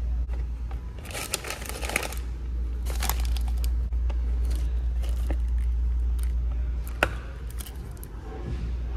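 Paper and plastic packaging crinkling and rustling as it is handled, in short bursts, with a sharp click about seven seconds in, over a steady low hum.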